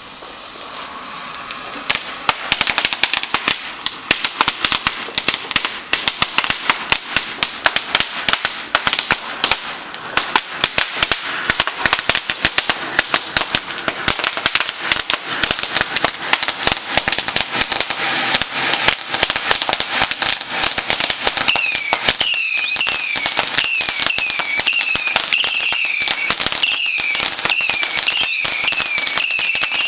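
Garden fireworks going off: after a hissing start, dense crackling with frequent sharp pops and bangs from about two seconds in. About two-thirds of the way through, a run of whistling fireworks joins the crackle, about two short whistles a second, each sliding in pitch.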